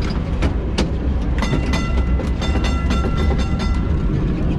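Historic tram running with a steady low rumble. From about a second and a half in to about four seconds comes a quick series of ringing metallic strikes, several a second.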